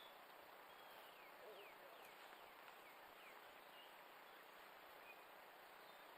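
Near silence: faint outdoor ambience, with a quick series of faint high, falling chirps between about one and three and a half seconds in.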